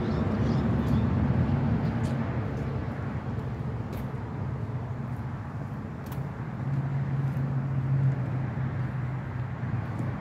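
Road traffic: a steady low rumble of cars going by, with one vehicle passing louder about seven to eight seconds in.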